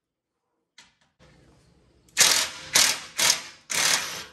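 Cordless driver with a 10 mm socket run in four short bursts in quick succession, spinning out a bolt of the underbody cover.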